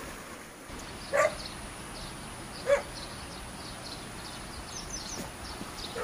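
Two short, sharp animal calls, much like a dog's barks, about a second and a half apart. Faint high chirping sounds over a steady outdoor hiss.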